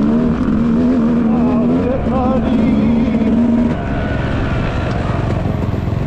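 Dirt bike engine running with a steady, held note that wavers a little, then drops away about four seconds in.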